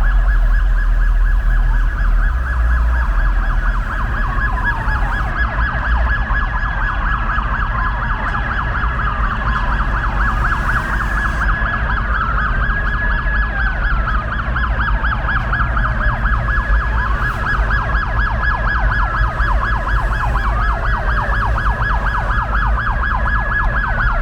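Police car sirens sounding together: a wail that sweeps down in pitch every couple of seconds over a rapid warbling yelp, with a low rumble underneath.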